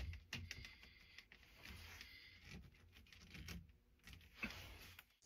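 Faint scraping and small clicks of hands working the plastic Navien acid neutralizer, its bottom canister being screwed back onto the housing's threads.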